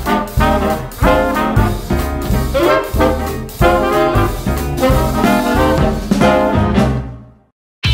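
Upbeat background music with a strong, regular beat, fading out near the end into a brief silence.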